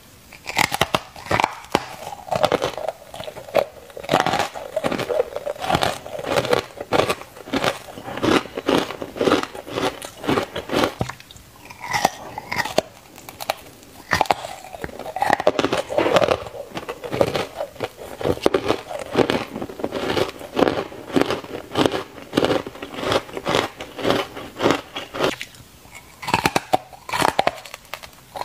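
Close-up crunching of a block of ice dusted in matcha powder, bitten and chewed: a dense run of crisp crackles, bite after bite, with only short pauses.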